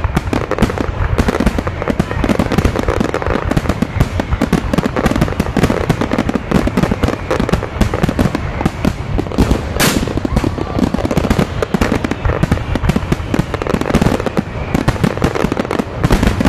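Aerial firework shells bursting close overhead in quick succession, a dense, unbroken crackle of many small reports mixed with heavier bangs. About ten seconds in, one longer, brighter burst stands out above the crackle.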